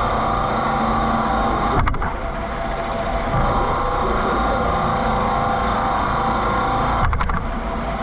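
CNC mill drilling Monel K500 with a half-inch drill: a steady machining sound with several steady tones over a dense hiss, briefly broken twice, about two seconds in and about seven seconds in.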